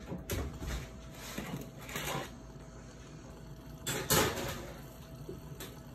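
An oven door opening and a metal baking sheet of raw meatballs being slid onto the rack, then the door shutting: a few short scraping and clunking noises, the loudest about four seconds in.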